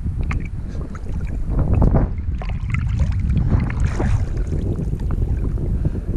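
Lake water splashing and sloshing around a handheld action camera held at the surface by a swimmer, with irregular splashes over a constant low rumble of water and wind on the microphone.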